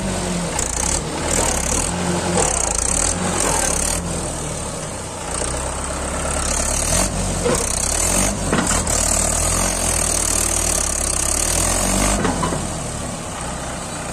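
Mahindra 575 DI tractor's four-cylinder diesel engine running steadily under heavy load as it strains to drag a loaded trolley out of soft sand, with a hiss that comes and goes throughout.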